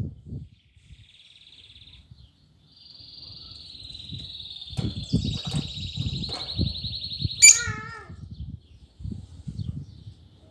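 A lovebird chattering: a long buzzy, fast-trilling call that ends in one sharp, loud squeak about three quarters of the way in. Soft low knocks run underneath.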